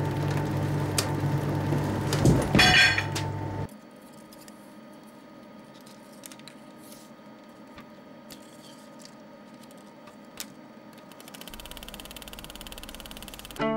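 A steady mechanical hum with a short rattling burst cuts off about a third of the way in, leaving a quiet stretch with a few small clicks as hands work a film projector's mechanism. Near the end the film projector starts running, with a low hum and a rapid fine clatter.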